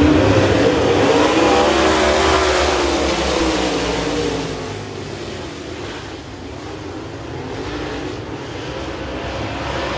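A field of dirt late model race cars' V8 engines running on the track, with pitch wavering as they rev. The sound is loudest at first, fades about halfway through, and builds again near the end.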